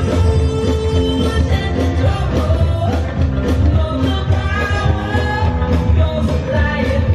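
A 1970s-style pop song with a singer and a steady beat, the music of the Supertree light show.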